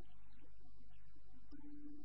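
Steady low hum with faint, indistinct background noise and a brief faint tone near the end; no clear event.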